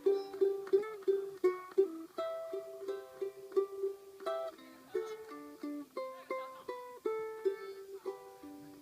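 Ukulele playing a melody of plucked notes, a few notes a second, each note sharp at the start and dying away quickly.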